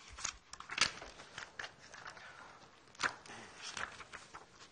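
Scattered knocks, clicks and light rustling from a person moving about and handling things in a classroom, the sharpest knocks about a second in and about three seconds in.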